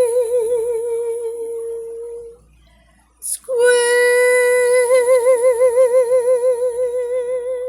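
A woman's unaccompanied voice holding the song's final notes: one long note with vibrato, a quick breath about three seconds in, then a second note held for about four seconds with a widening vibrato.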